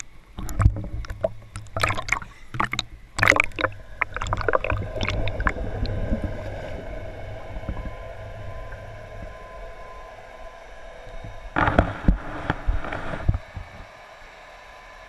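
Water splashing and gurgling around a waterproof-housed GoPro Hero 3 as it is dunked at the lake surface and pushed underwater. There is a quick run of splashes and bubbling in the first six seconds, a second burst about twelve seconds in, and then a steady muffled hiss.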